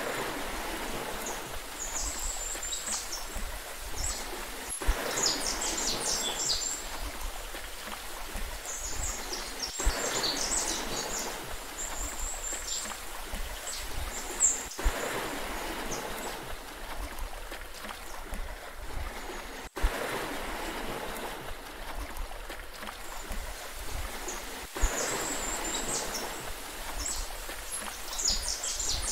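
Steady wash of sea water with small birds chirping in high, quick clusters every few seconds. A sharp click sounds about every five seconds.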